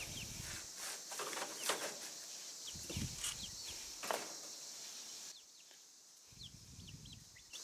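Young chicks peeping in short, high, falling chirps, with brief rustling of pine shavings and the wire dog crate as a hand reaches in among them.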